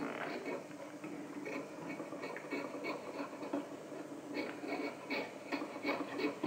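Raw potato being peeled one-handed against a kitchen knife fixed upright in a wooden peeling board: a run of short, irregular scraping cuts, several a second, as thin peel strips come off.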